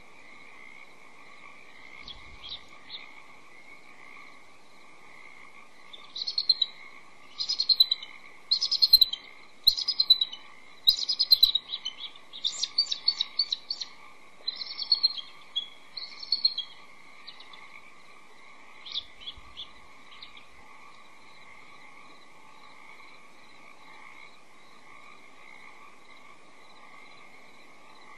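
Bald eagles calling back and forth at the nest: high, rapid chittering call series. A few faint notes come first, then a long run of loud calls in quick succession, and a last short call later on.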